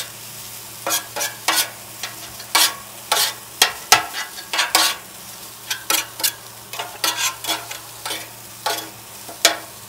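Fried rice sizzling on a Blackstone flat-top griddle while it is stirred and tossed, with frequent short scrapes and clacks of a metal spatula on the steel top, about one or two a second.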